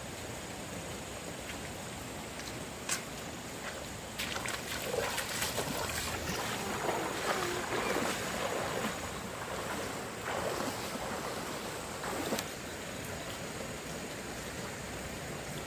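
Steady rushing of a flowing stream in flood. From about four seconds in to about twelve seconds, a run of irregular knocks and rustling handling noise rises over it.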